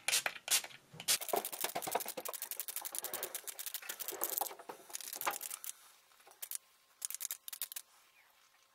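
Finger-pump mist spray bottle of isopropyl alcohol pumped over and over: a few spritzes, then a fast run of short hissing spritzes for several seconds, thinning to scattered single spritzes near the end.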